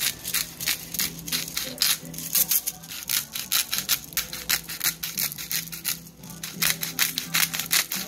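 Hand-twisted pepper mill grinding peppercorns, a rapid run of crisp crunching clicks with a short lull about six seconds in.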